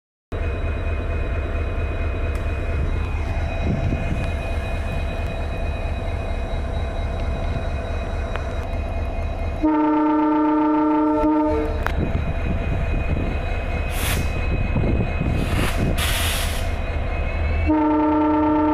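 WDP4D diesel-electric locomotive standing with its diesel engine running in a steady low rumble. Its multi-note horn sounds for about two seconds roughly halfway through, then again near the end. There are two short hisses in between.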